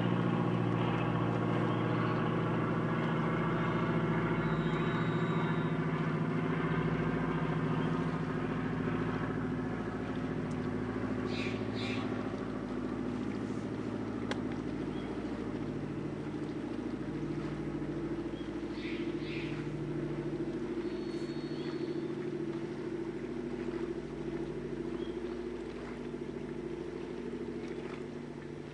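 Boat engine running steadily, a low hum made of several steady tones, heard from aboard the boat; it eases slightly after about nine seconds.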